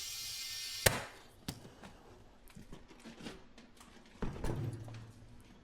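Compressed air hissing steadily as the mower tire is worked on, cut off with a sharp click about a second in. Scattered light clicks and knocks of tools and the tire follow, with a duller knock about four seconds in.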